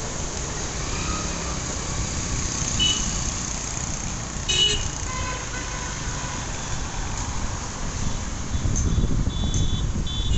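Highway traffic passing: steady road noise from cars, trucks and motorcycles, with a brief horn toot near the middle. The rumble grows louder near the end.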